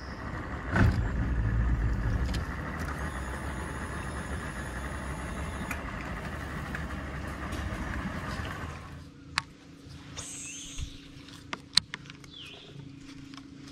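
Bass boat's motor running as the boat moves through a corrugated metal culvert, steady for about eight seconds, then dropping off. After that a quieter steady hum with a few sharp clicks near the end.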